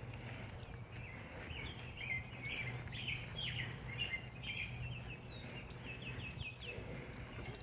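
Small birds chirping: a string of short, down-sliding chirps, coming quicker in a run near the end, over a steady low hum.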